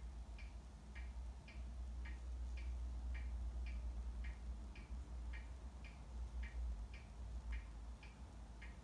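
Steady ticking, about two ticks a second, alternating slightly in pitch, over a low rumble.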